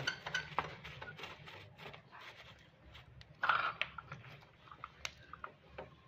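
Light metallic clicks and taps of brass refrigeration fittings, a pin (Schrader) valve and a charging-hose coupling, being handled and screwed together. A brief louder sound comes about three and a half seconds in.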